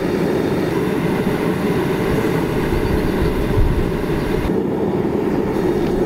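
Propane burner of a homemade aircrete furnace burning at full heat, a steady low rushing noise from the flame heating a crucible of aluminum cans.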